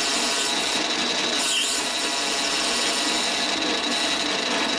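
Mini lathe running steadily with its chuck spinning, while a brass bar in the chuck is faced down to length. A brief higher-pitched sound comes about a second and a half in.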